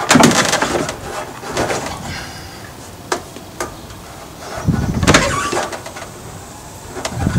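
Rope being pulled taut over stacked lumber: several scraping, rubbing pulls as it drags across the boards, the loudest at the start and about five seconds in, with a couple of sharp clicks in between.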